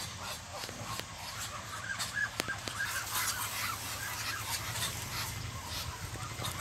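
Muscovy ducks making short, soft chirping calls, with a few sharp ticks about two seconds in and a steady low hum underneath.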